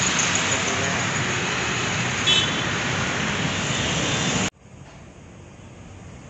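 Steady city street traffic noise, with a short high tone about two seconds in. It cuts off suddenly about four and a half seconds in, giving way to a much quieter outdoor hum.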